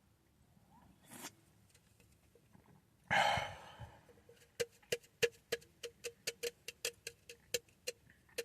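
A short breathy rush of air, then a run of light, sharp taps or ticks, about three a second, uneven in spacing.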